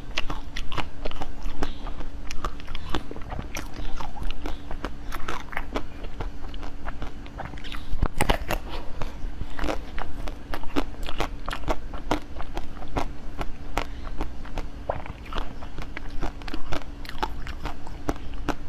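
Close-miked eating: a run of bites and chewing full of sharp, irregular crunchy clicks and crackles, over a faint steady hum.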